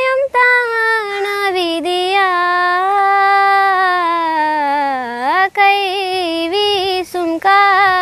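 A girl singing a Tamil song unaccompanied. She holds one long note that sinks slowly for several seconds, slides down and back up about five seconds in, then sings shorter phrases.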